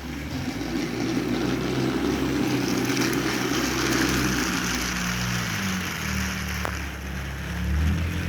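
Battery-powered TrackMaster toy engine's small motor whirring steadily as it pulls a train of eight trucks along the track, its hum wavering in pitch under the load.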